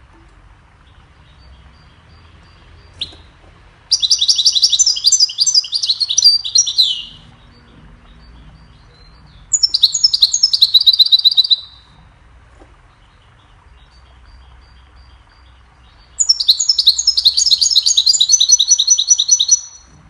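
European goldfinch singing: three loud phrases of rapid, tinkling high notes, each two to four seconds long and a few seconds apart, with a single sharp call note just before the first.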